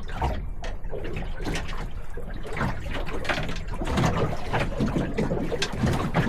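Water slapping and splashing against a small boat's hull in choppy water, with irregular knocks.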